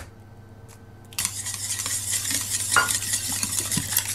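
A wire hand whisk beating eggs in a plastic mixing bowl, starting about a second in as a fast, continuous run of scraping strokes.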